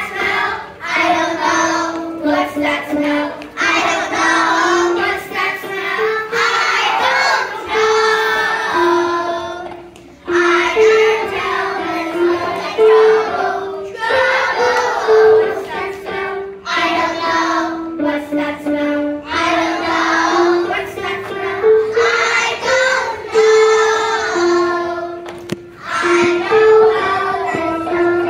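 Young children singing a song, phrase after phrase with held notes, and a short break about ten seconds in.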